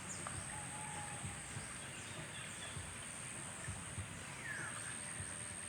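Outdoor nature ambience: a few scattered bird chirps, one falling about four and a half seconds in, over a steady hiss and a constant thin high tone.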